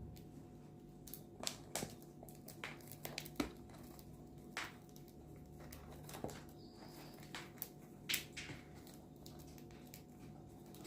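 Irregular small clicks and rustles from a pet cockatiel moving about, over a steady low hum.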